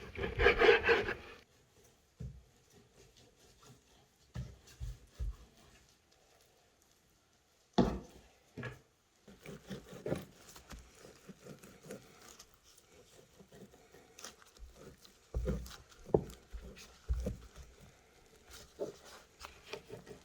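A short scraping rub, then scattered light knocks and clicks of things being handled, with a sharper knock about eight seconds in.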